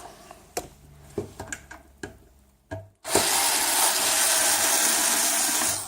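A few light clicks and knocks, then a power screwdriver runs steadily for nearly three seconds and stops suddenly, backing screws out of a CB radio's case.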